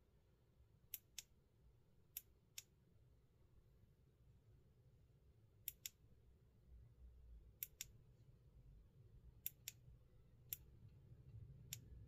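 Klarus E5 flashlight's switch clicked over and over, mostly in quick pairs of sharp clicks every second or two, with a single click twice near the end, over a faint low hum.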